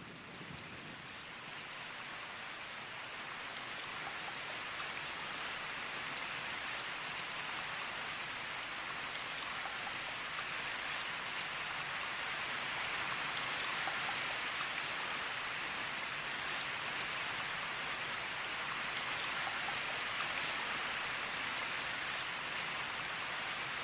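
Heavy rain falling steadily, a dense hiss of drops that swells over the first several seconds and then holds.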